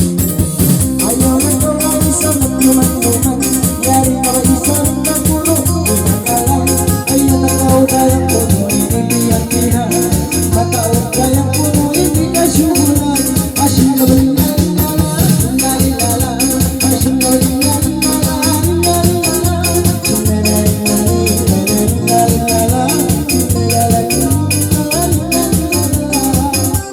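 Music on an electronic keyboard with an organ-like sound, over a steady beat with a shaker or maraca-like rattle.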